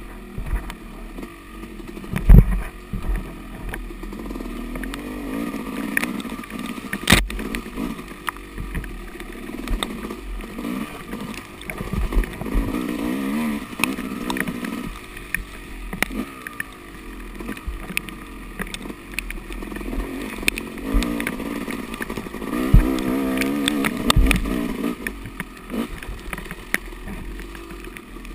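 Yamaha dirt bike engine (86–200 cc race class) being ridden, its revs rising and falling over and over. Sharp knocks cut in now and then, the loudest about two seconds in and another about seven seconds in.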